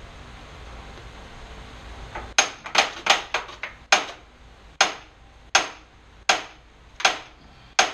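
Hammer striking metal: about a dozen sharp, ringing blows starting a couple of seconds in, quick at first, then about one every three-quarters of a second.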